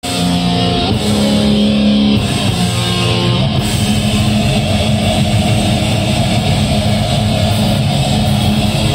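Live rock band playing loud through amplifiers: distorted electric guitar and bass over drums. Held chords change about every second for the first three and a half seconds, then the full band drives on steadily.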